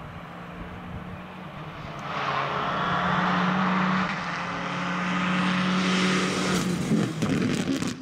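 Citroën DS3 rally car driven flat out toward the camera and past it, its engine note rising and getting loud about a quarter of the way in. The note dips briefly around halfway as the driver lifts or changes gear, climbs again, then breaks into sharp crackles near the end as the car goes by.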